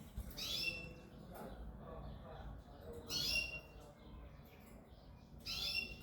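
Quail calling: three short, high calls about two and a half seconds apart.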